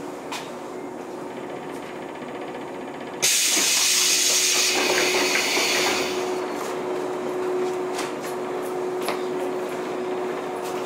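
115 series electric train's compressed-air system: a sudden loud hiss of released air about three seconds in, lasting about a second and a half and trailing off, over faint clicks; a steady hum stays on after it.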